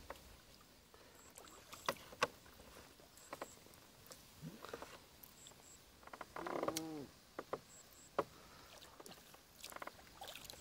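Bamboo raft on a lake: faint paddling and water lapping, with scattered sharp knocks of the bamboo poles and a brief pitched sound about six and a half seconds in. A faint high double peep recurs every couple of seconds.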